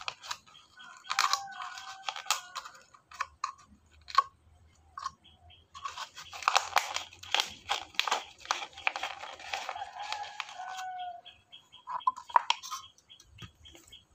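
Crackling and crunching of a stiff plastic bottle and thin can being cut and handled, in irregular bursts that are densest in the middle, with a few short squeaks.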